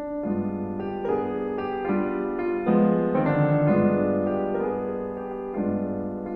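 Piano music: sustained chords and notes changing every second or so.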